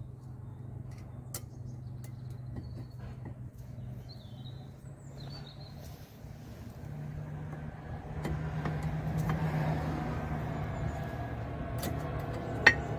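A steady engine hum, as of a vehicle running, that grows louder about eight seconds in, with a few light metallic clicks and one sharp click near the end as brake pads are set into the caliper bracket. A bird chirps briefly about four seconds in.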